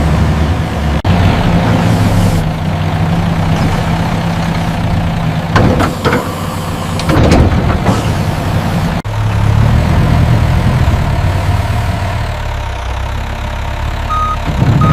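Mini excavator's diesel engine running steadily as it digs, with a couple of brief louder surges midway. Reversing beeps start near the end.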